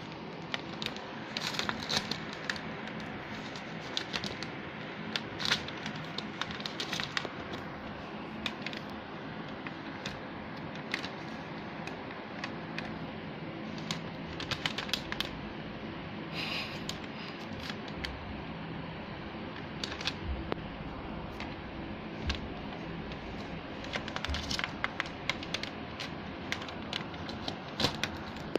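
A cat's paw reaching under a door and swiping at the plastic sheet over the gap, making irregular clicks, taps and crinkles. A steady low hum runs underneath.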